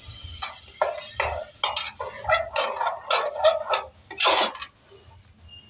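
Steel ladle stirring rice and urad dal in a pressure cooker, scraping and clinking against the pot in quick irregular strokes, with the loudest scrape about four seconds in.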